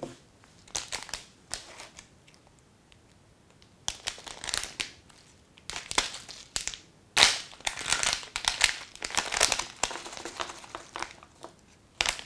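Clear plastic parts bag crinkling in irregular bursts as it is handled, pulled open and shaken out. The loudest crinkle comes a little past halfway.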